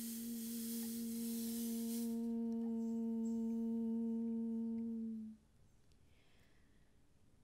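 A single steady held musical note with faint overtones, under a bright hiss for its first two seconds; the note stops abruptly about five seconds in, leaving near silence.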